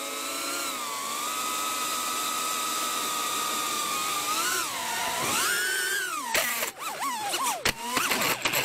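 An FPV drone's electric motors and propellers whine at a steady high pitch, which then swoops up and down with the throttle. From about six seconds in come several sharp knocks, the drone hitting the ground, while the motor whine lurches unevenly.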